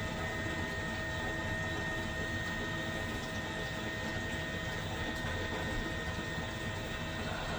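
Worcester-Bosch condensing combi boiler firing up after a reset and running, a steady sound with a thin high whine and gurgling noises, the sign of a clogged condensate trap.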